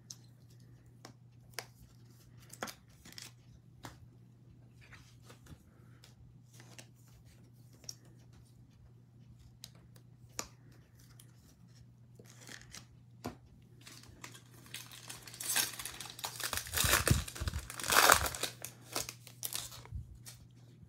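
A 2021 Bowman Draft trading card pack's wrapper being torn open and crinkled: a loud burst of tearing and crinkling lasting a few seconds near the end, after scattered light taps and clicks. A faint steady low hum runs underneath.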